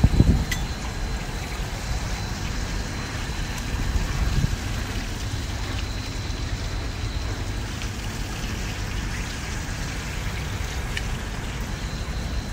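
Steady outdoor background noise: an even hiss over a low rumble, with a few faint clicks.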